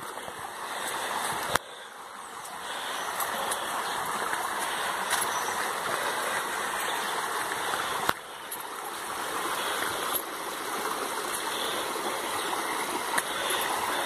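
Shallow river water running steadily over rocks. There is a brief click about one and a half seconds in and another about eight seconds in.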